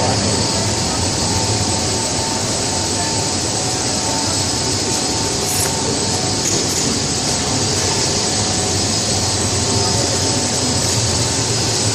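Snack pellet drying oven running: a steady machine noise with faint steady whines over it.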